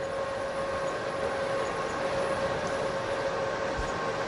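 Steady machine hum with a few constant tones over a low hiss, and a faint low thump near the end.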